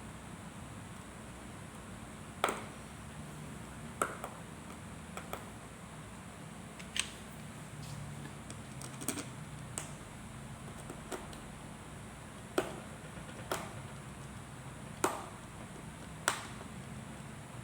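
Scattered single clicks and light taps, about a dozen at irregular intervals, over a steady low hum.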